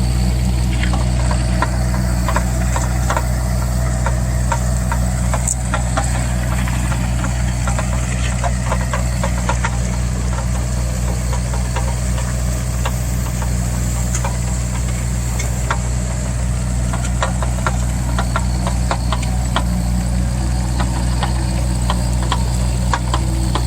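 Mini excavator's engine running steadily, with frequent small clicks and rattles from the machine throughout.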